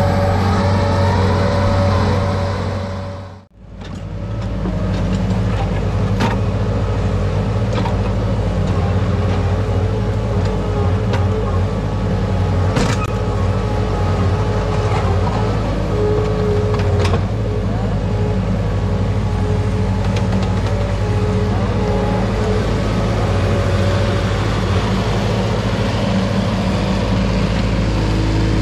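Engine of earthmoving machinery running steadily, with a few sharp knocks now and then. The sound drops out for a moment about three and a half seconds in, then carries on.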